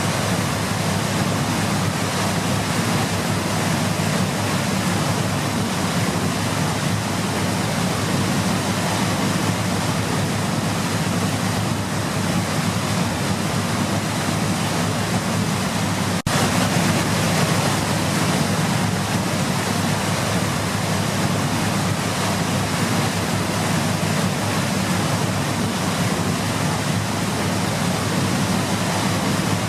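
Waterfall rushing with a steady, dense roar of falling water, with a brief break about halfway through where the sound cuts and resumes slightly louder.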